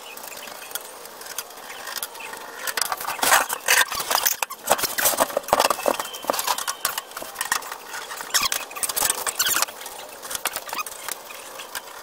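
Sheet-steel outer cover of a microwave being worked loose and lifted off the chassis: an irregular run of metal clicks, rattles and scrapes.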